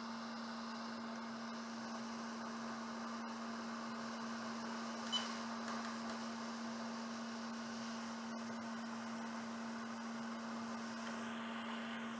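Steady hum and airy hiss of a hot-air rework station blowing, with a few faint light clicks about five seconds in.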